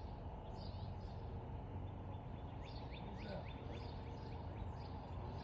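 A bird chirping in a quick run of short, falling notes over steady low outdoor background noise.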